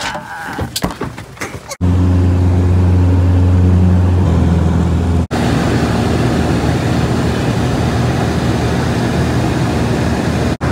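A few knocks and clatters as a passenger climbs into a small propeller plane, then, from about two seconds in, the loud steady drone of the plane's engine and propeller heard from inside the cabin in flight, with a strong low hum. The drone drops out for an instant about five seconds in.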